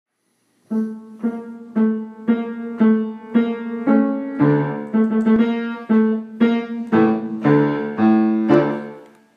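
Piano introduction: one note struck over and over, about twice a second, with lower bass notes joining about halfway through, the last note dying away near the end.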